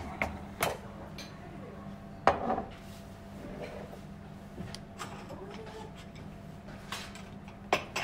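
Tableware clinking at a dining table: cutlery tapping and scraping on plates and bowls in scattered knocks, the loudest about two seconds in and another near the end, over a steady low hum.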